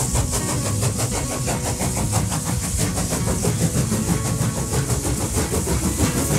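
A locomotive running with a fast, even, rhythmic chugging at a steady level.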